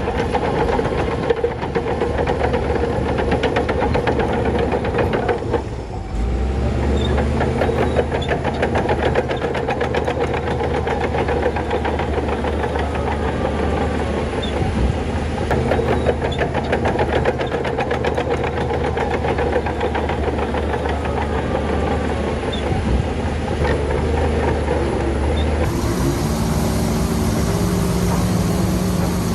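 Heavy diesel engine of earthmoving machinery running hard with a dense clatter. Its note changes a few times, with a brief dip about six seconds in.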